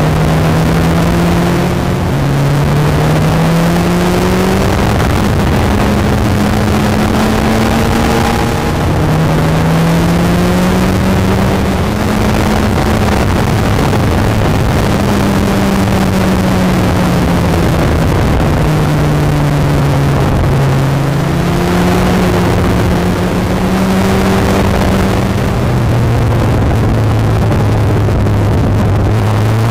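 Onboard sound of a Kawasaki ZX-14's inline-four engine, its pitch climbing and dropping back again and again as the throttle is rolled on and off through the bends. It is heavily overlaid with wind and road noise.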